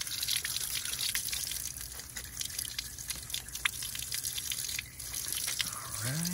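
Hose water jetting out of a row of small cooling-water intake holes on an OMC Cobra sterndrive's lower unit and splattering, with many small drips and ticks over the steady spray. The intake is being flushed to clear out sand and small rocks that caused the engine to overheat.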